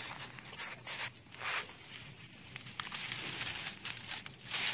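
Dry grass and brittle stems of an apamarg (prickly chaff flower) plant rustling and crackling as it is pulled up by hand to get at its root, in a few short bursts.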